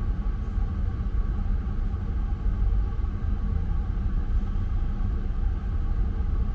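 Steady low engine rumble with no breaks or sharp knocks.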